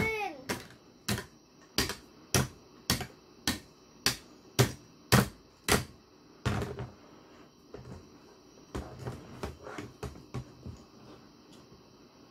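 Plastic action figures knocked together: a Spider-Man figure banged down onto an Iron Man Mega Mighties figure again and again, about eleven sharp knocks roughly every 0.6 s for the first six seconds, then a few lighter taps.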